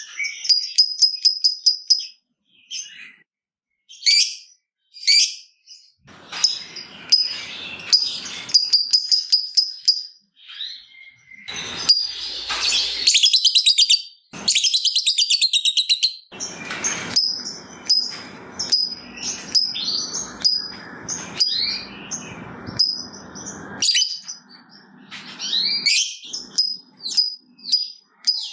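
Lovebird chattering: runs of rapid, evenly spaced high ticking chirps, with a long fast trill about halfway through. This is the 'ngetik' chatter used as a lure to set other lovebirds calling.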